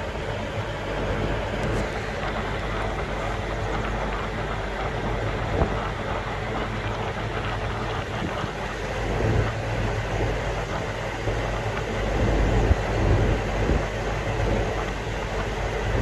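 Mini air source heat pump running: a steady mechanical hum with low tones under the rush of its fan. The low rumble swells for a couple of seconds near the end.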